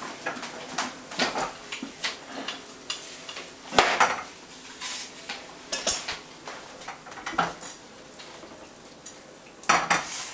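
Scattered clinks and knocks of kitchen objects being handled, with a sharper knock about four seconds in and a louder cluster near the end.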